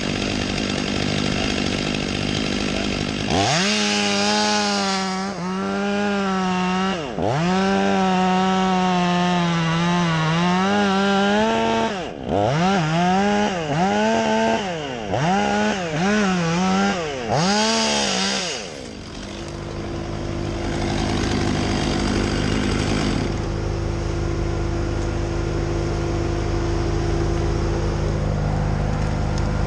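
Chainsaw running at high revs and cutting, its pitch sagging under load and climbing back again and again, with a run of short throttle blips before it stops about eighteen seconds in. A steady lower machine drone runs underneath and carries on alone after the saw stops.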